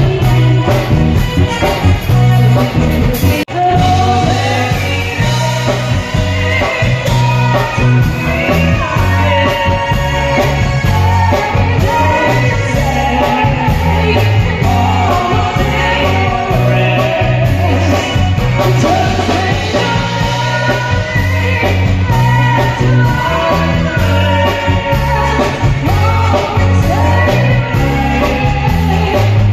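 Live band playing a song with a singer, heard loud through the PA speakers, with a heavy, steady bass line under the vocal. The sound cuts out for an instant about three and a half seconds in.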